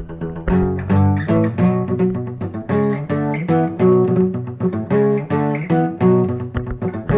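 Background music: a plucked acoustic guitar playing a rhythmic, note-by-note pattern, with a low bass line beneath.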